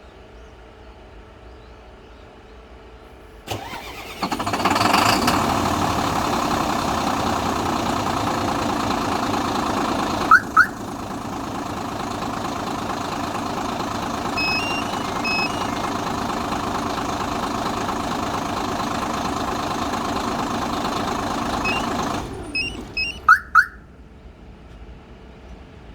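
Hyundai Trago concrete mixer truck's diesel engine started by a remote starter about four seconds in, running steadily, then shut off near the end. Short rising chirps from the alarm unit sound twice a few seconds after the start and again just after the engine stops, with a few faint beeps in between.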